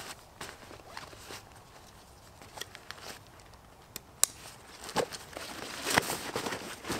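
Rustling and handling of a backpack's fabric and straps as its top is pushed down and closed, with two sharp clicks about four seconds in and louder rustling near the end.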